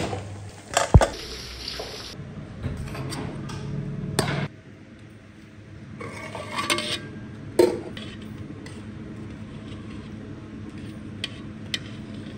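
Metal kitchenware clinking and scraping: a ladle scraping in an aluminium cooking pot and a steel plate lid handled on a serving pot. There are scattered sharp clinks, the loudest just past the middle and a couple of light ones near the end.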